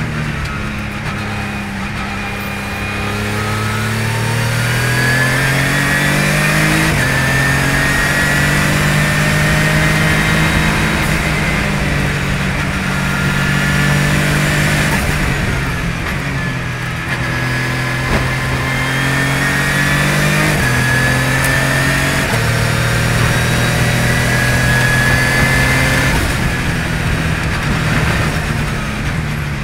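Radical RXC race car's engine heard from the cockpit under hard acceleration, its pitch climbing through the revs and stepping at several quick gear changes, with a high whine riding above it.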